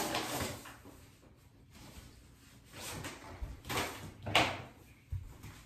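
A few short rustles and knocks of a person moving and handling paper and a phone, the loudest about four seconds in, with a low thump about a second later.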